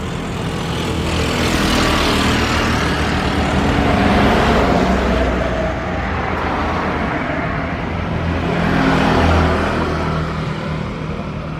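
Engine and road noise of passing vehicles, swelling and fading twice: one pass in the first few seconds, another about nine seconds in.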